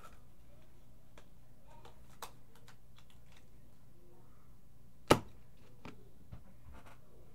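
Faint scattered clicks and taps from trading cards and their packaging being handled, with one sharp, loud click about five seconds in.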